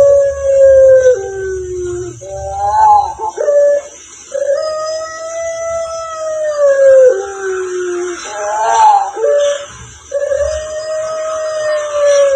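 An animal giving long, siren-like howling calls, each held about two and a half seconds and dropping in pitch at the end. There are three of them, with short rising yelps between.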